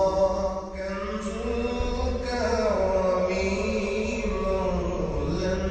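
Islamic devotional chant (a nasheed) on the soundtrack: a voice holding long, drawn-out notes that slide up and down in pitch.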